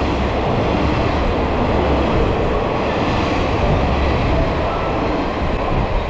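A five-car train of KiHa 40 and KiHa 47 diesel railcars passing close by at speed without stopping, with a steady rumble of the engines and wheels on the rails.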